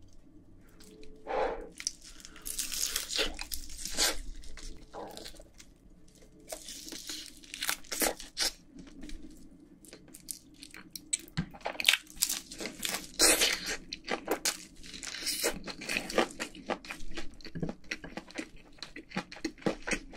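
Close-miked crunching bites into Korean soy-sauce fried chicken and chewing, the crisp coating crackling in many quick, irregular crunches.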